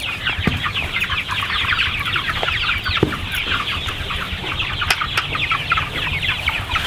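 A crowded flock of several hundred young meat chickens cheeping continuously, a dense chorus of short high calls, with a couple of brief knocks in between.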